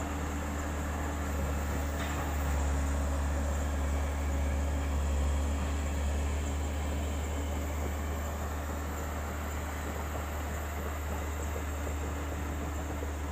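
Excavator's diesel engine running steadily with a deep drone, a little louder for a few seconds near the start.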